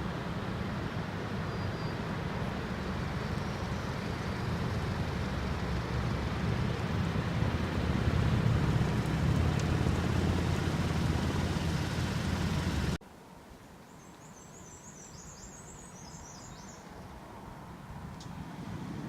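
Steady rush of a waterfall that cuts off suddenly about two-thirds of the way through, leaving a much quieter rush of water, over which a bird gives a short run of high chirps.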